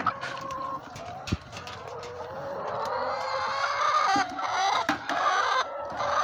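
Laying hens clucking and making drawn-out, wavering calls in the nest boxes, disturbed by a hand reaching under them for eggs, with a few sharp knocks against the nest boxes' wire floor.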